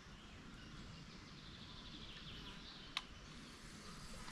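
Faint outdoor ambience with small birds chirping, and one sharp click about three seconds in.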